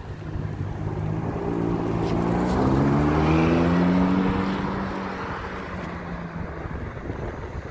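Ferrari F430 Spider's V8 accelerating hard from a pull-away, its note climbing in pitch and growing loudest about three to four seconds in, then fading as the car drives off.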